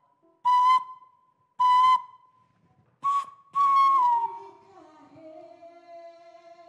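Four short, loud, breathy whistle blasts on one pitch, the last one longer and dropping in pitch at its end, followed by softer held notes on two lower pitches.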